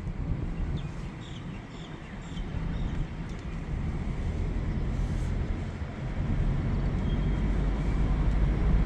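Car driving: a steady low rumble of road and engine noise that grows louder through the second half.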